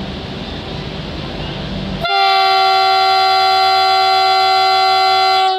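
Vande Bharat train horn: one long, steady blast of about three and a half seconds that starts sharply about two seconds in and cuts off at the end, sounded for departure. Before it there is a steady rumble of background noise.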